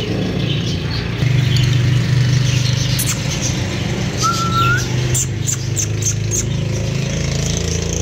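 Caged birds chirping in short high calls, with one short rising whistle about four seconds in. Under them runs a steady low engine hum, which is the loudest sound.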